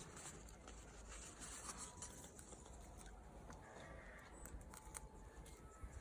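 Faint rustling and small scattered ticks of potting soil and aloe pups being handled.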